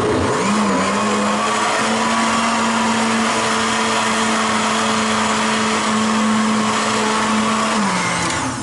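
Countertop blender running, puréeing a green marinade of parsley and wine. The motor spins up in the first second, runs steadily for about seven seconds, then winds down near the end.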